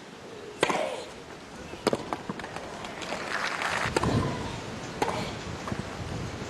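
Tennis rally: racquets striking the ball with sharp cracks about a second and a half apart, the first shot carrying a player's grunt, then a swell of crowd noise and low rumble about three seconds in.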